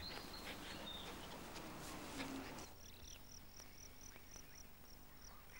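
Faint outdoor ambience. From a little before the middle, a high, even chirp repeats about three to four times a second.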